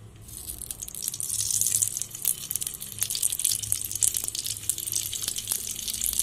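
White refined oil sizzling on a hot tawa as it is poured around a puffed cheese paratha. The hiss starts a fraction of a second in and keeps going, full of small crackling pops.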